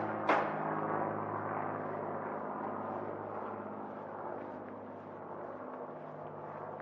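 A bell struck about twice a second, the last stroke just after the start, then its ringing slowly dying away.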